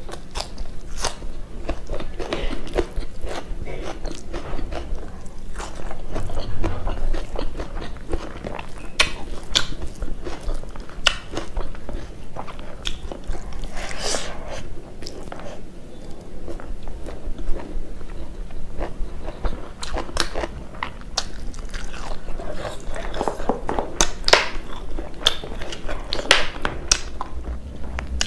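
Close-miked eating by hand: biting and chewing rice, meat curry and raw onion, with wet chewing, crunches and lip smacks in irregular clicks throughout.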